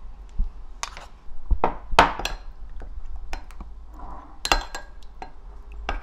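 Metal spoon clinking and scraping against a small ceramic bowl in irregular taps while stirring gochujang into soy sauce, the loudest tap about two seconds in.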